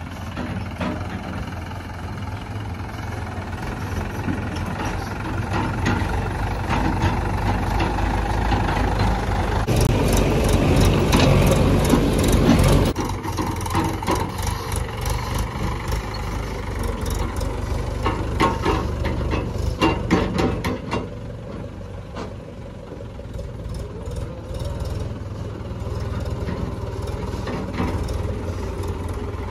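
Heavy diesel machinery engine running steadily, getting louder and rougher about ten seconds in as if under load, then dropping back suddenly a few seconds later. A cluster of sharp knocks comes near the middle.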